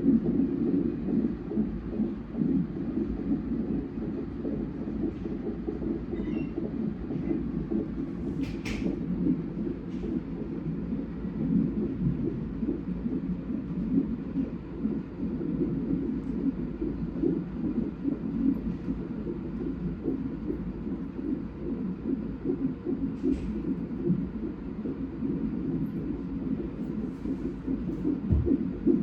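Fetal heart monitor's Doppler ultrasound speaker playing an unborn baby's heartbeat during a non-stress test: a steady, unbroken pulsing whoosh.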